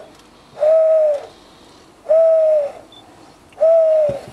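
A series of even, owl-like hoots, each about half a second long, repeating about every second and a half: a tail of one hoot at the start, then three more.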